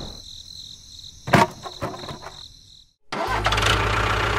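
A sharp click and a few lighter clicks, a moment of silence, then an engine comes in about three seconds in and runs steadily at idle.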